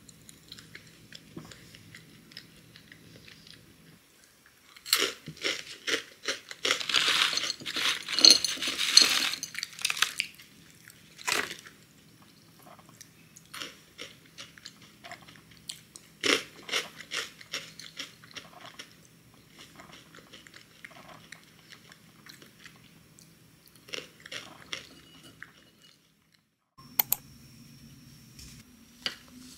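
Close-up chewing of crunchy cacao protein granola clusters: dense crackling crunches in several bouts, the longest and loudest about five to ten seconds in, with shorter bouts later.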